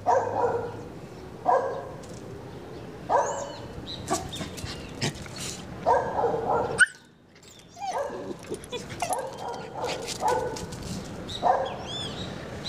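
Dog barking in short bursts, one every second or two.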